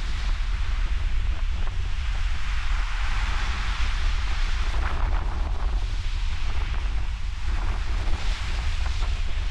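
Wind buffeting the microphone with a steady low rumble, over the hiss of ocean surf that swells up twice as waves wash in.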